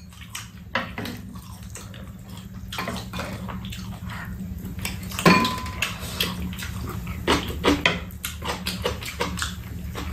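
Spoons and chopsticks clicking and scraping against bowls during a meal, in scattered clinks, with one brief ringing clink a little over five seconds in. A steady low hum runs underneath.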